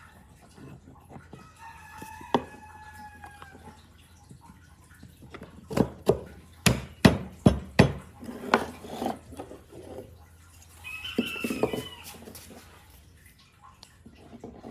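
A rooster crowing twice, once about two seconds in and again near the end. Between the two crows comes a run of about seven sharp knocks, the loudest sounds here.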